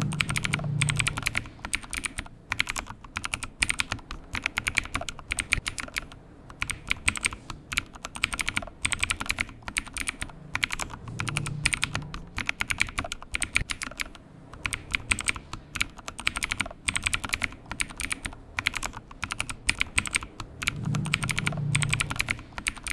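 Computer keyboard typing, rapid keystrokes in bursts with short pauses between them.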